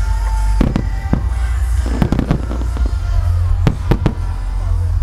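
Aerial firework shells bursting in quick clusters of sharp bangs, about a second in, at two seconds and near four seconds, over a continuous deep rumble from the barrage, with music playing underneath.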